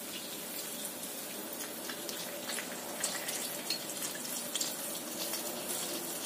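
Grated garlic and ginger frying gently in oil in a wok over a low flame: a steady sizzling hiss with scattered small pops.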